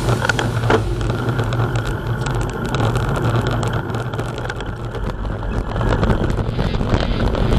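Wind buffeting a moving camera's microphone over a steady low road rumble, as from a bicycle rolling along a road.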